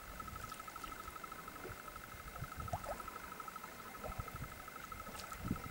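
Wind buffeting the microphone in low, uneven gusts that grow stronger near the end. Under it runs a steady, high, fast-pulsing trill.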